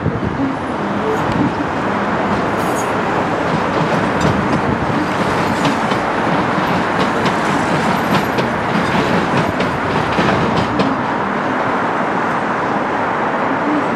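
A two-unit Docklands Light Railway train of the older B90/B92 stock running away across junction pointwork. Its wheels give a steady rolling noise, with a run of clicks and clatters over the points from about four to eleven seconds in.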